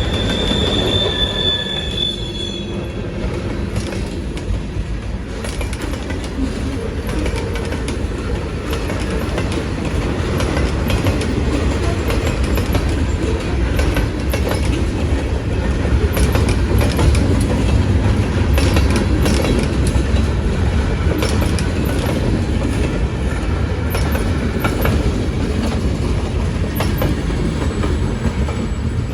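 CN freight train rolling slowly past with its brakes applied. A high steady brake squeal fades out about three seconds in, leaving the low rumble of the cars and the irregular clatter of wheels on the rails.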